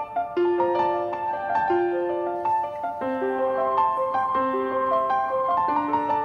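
Background piano music: a melody of held notes over broken chords, the notes struck one after another.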